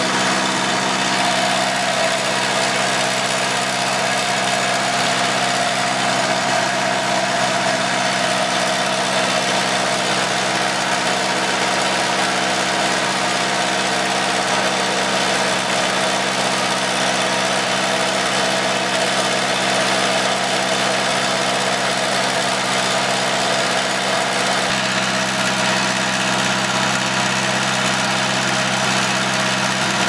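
Gas-powered four-cylinder engine of a Target Pro 35 II walk-behind concrete saw running steadily at one constant speed.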